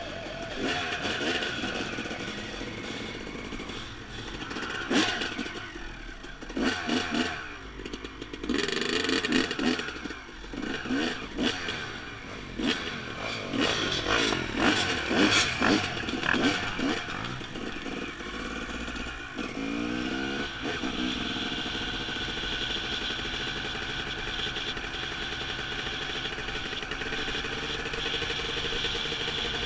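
Dirt bike engine running under the rider while setting off down a rough dirt road. The revs rise and fall unevenly, with knocks and rattles from the bike over the ground. About two-thirds of the way in the pitch climbs as it speeds up, then settles into a steady cruising note.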